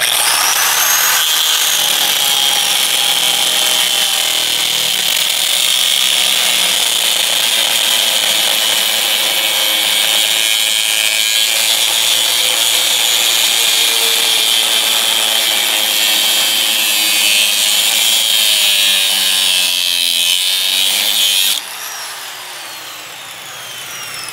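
Corded DeWalt angle grinder spinning up and grinding into automotive sheet metal with a steady, loud, high-pitched grinding hiss. About three seconds before the end it comes off the metal, and the motor winds down with a falling whine.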